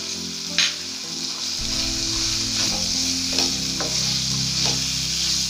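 Chicken pieces sizzling in a hot nonstick frying pan while a wooden spatula stirs them through ketchup, scraping and tapping against the pan. A sharper knock of the spatula comes about half a second in.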